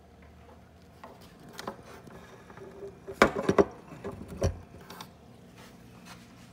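Knocks and clicks of a phone being handled and moved, with a loud cluster of three or four knocks about three seconds in and another knock about a second later, over a faint steady low hum.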